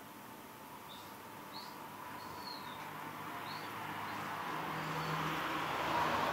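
About five short, high bird chirps over a background rushing noise that builds steadily louder toward the end.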